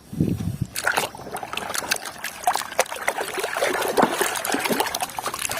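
Water splashing and trickling as a toy vehicle is washed by hand in water, with irregular splashes throughout and a low thud just after the start.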